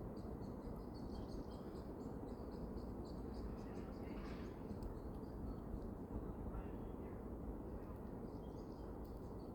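Faint small birds chirping, short high notes again and again, with one harsher call about four seconds in, over a steady low outdoor rumble.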